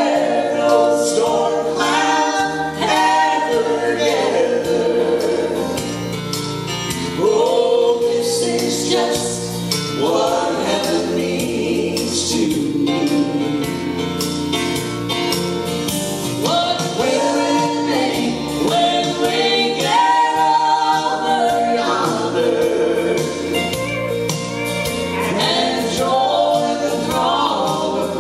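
Live gospel singing: two women's voices in harmony, with some notes held long.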